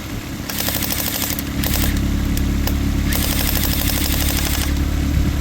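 Battery-powered automatic airsoft gun firing rapid bursts of BBs into a running Toyota engine. There is a short burst about half a second in, a couple of single shots, then a longer burst of over a second. Under it the engine idles steadily, with no knock or damage noise from it yet.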